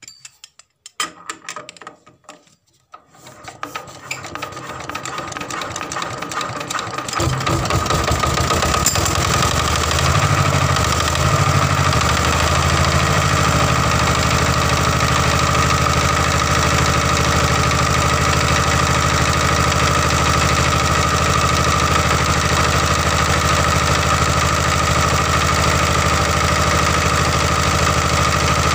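A few clicks, then a single-cylinder diesel engine being started: it spins up over a few seconds, fires and catches about seven seconds in, and runs steadily from then on. It now runs because its fuel injection pump delivers diesel again, after the blockage in the pump's delivery valve was cleared.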